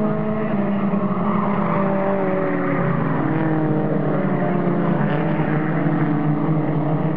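Engines of several mini stock race cars running hard on an oval track, their overlapping engine notes rising and falling as the pack drives past.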